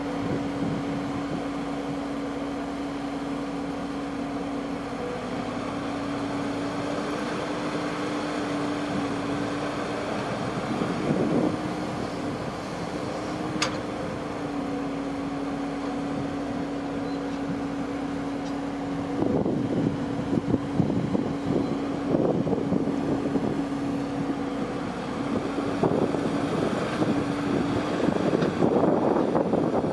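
Kubota rice-harvesting machine's engine running at a steady pitch, with louder, irregular rushing noise from about two-thirds of the way in.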